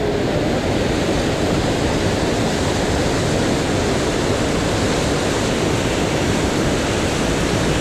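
Steady rush of a muddy river in flood pouring through rapids of white water.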